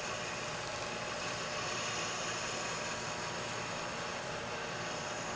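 Metal lathe running, a steady machine hum and hiss, while the tool is fed by hand into the steel for a cutting pass. A few brief louder swells come in the first second, with a short click about three seconds in.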